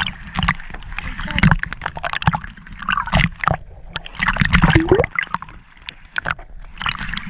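Water sloshing, gurgling and splashing around a camera held just under the surface beside a boat's hull, with many irregular knocks and bubbling.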